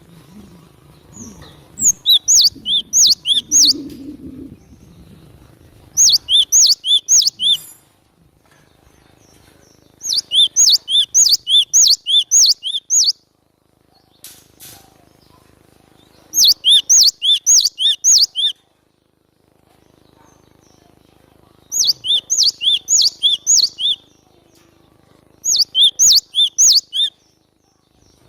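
Glatik batu (cinereous tit) singing: six loud phrases of quickly repeated high, sharp two-part notes, about three a second, each phrase lasting two to three seconds with short pauses between.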